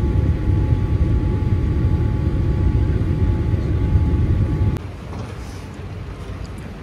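Airliner cabin noise on approach: a loud, steady low rumble of engines and airflow with a faint steady whine above it. It cuts off abruptly about five seconds in to the much quieter background of an airport terminal.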